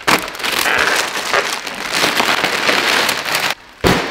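Plastic wrap and foam packaging crackling and rustling as it is pulled and torn off a carbon-fibre hatch lid. It ends with a single thump just before the end.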